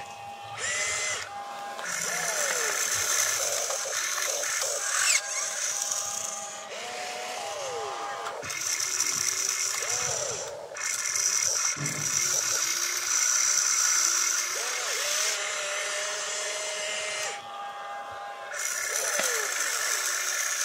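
Electric motors of a radio-controlled excavator whining as the boom, arm and bucket are worked. The whine stops and restarts several times, with a longer pause near the end, and its pitch rises and falls as the controls are moved.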